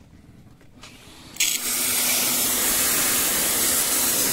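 A water spray jet comes on suddenly about a second and a half in and hisses steadily and loudly, rinsing foamed cleaner off an air-conditioner's indoor unit. Before it starts there are only a few faint clicks.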